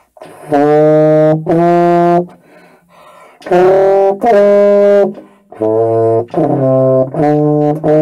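Euphonium playing an E-flat scale, a series of separate held notes in short groups with brief pauses between them, played by an inexperienced player on an instrument that is not her main one.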